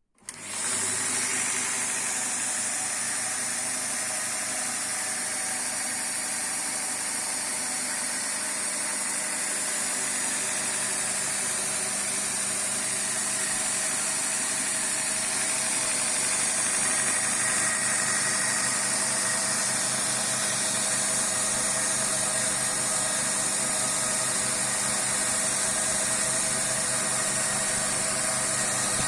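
Homemade belt grinder driven by a 1.8 kW, 2850 rpm electric motor, switched on and coming up to speed within about half a second, then running steadily with a strong high hiss.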